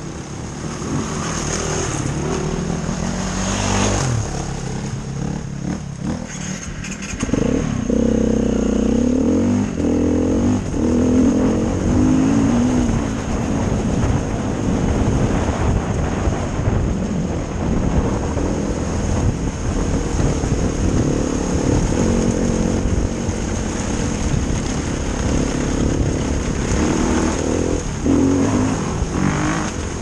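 Dirt bike engine running under load close to the microphone, its pitch rising and falling as the throttle opens and closes. It gets louder about a quarter of the way in as the bike pulls away and keeps revving over a constant rushing noise.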